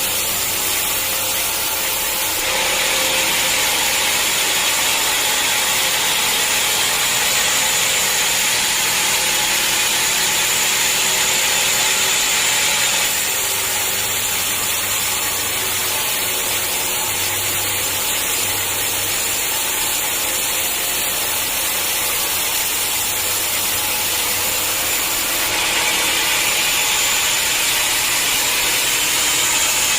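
Sawmill saw running through a hard acacia log, a steady cutting noise with a thin high whine. It grows louder and brighter about two seconds in, eases off near the middle, and picks up again near the end.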